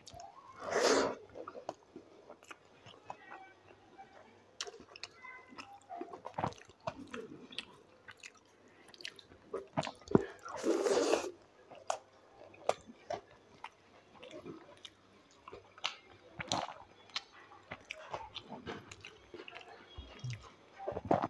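Close-miked mouth sounds of eating dal and rice by hand: wet chewing and smacking with small clicks throughout. There is a louder noisy bite as a handful goes into the mouth about a second in and again about ten seconds in.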